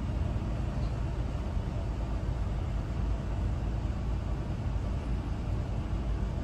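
Steady low rumble of a city bus's engine, heard from inside the passenger cabin.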